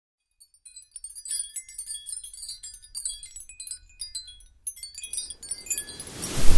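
Intro logo sound design: a scatter of high, tinkling chime notes over a faint low rumble, then a whoosh of noise that swells to the loudest point near the end.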